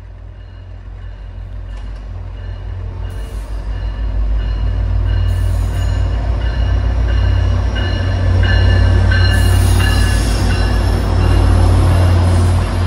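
Diesel train approaching and passing, its heavy low rumble growing steadily louder over the first several seconds and then holding loud. From about the middle on there are high wheel-squeal tones.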